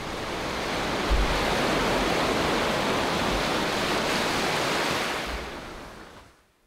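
Sea waves breaking and washing up a beach, a steady rushing surf that fades out near the end.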